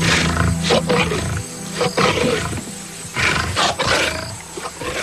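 Lions growling and snarling in a series of short, rough bursts, the sounds of a courting and mating pair, over soft background music.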